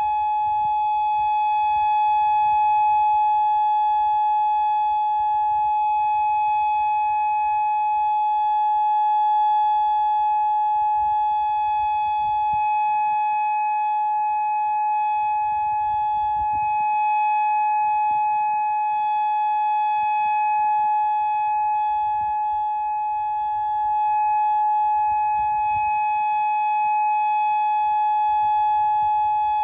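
Federal Signal Modulator 6024 electronic outdoor warning siren sounding a steady tone that holds one pitch without wavering, during a siren system test. A low rumble comes and goes underneath.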